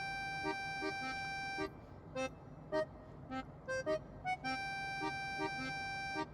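Background music: an accordion holds a chord twice, once at the start and again in the second half, over short staccato notes.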